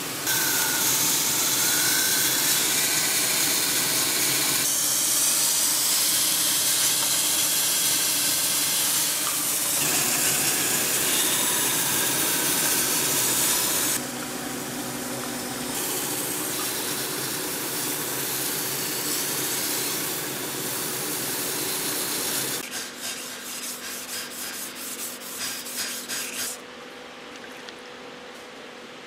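Wet grinding wheel running with an even, loud hiss of spinning stone and water spray for about the first half, then water pouring from a pipe into a tank. Near the end, a cleaver blade is stroked quickly back and forth by hand on a wet sharpening stone for a few seconds.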